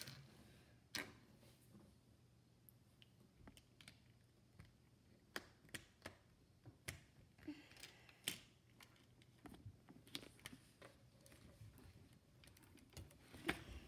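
Plastic Lego bricks clicking and clattering as small pieces are handled and pressed together, an irregular series of small sharp clicks.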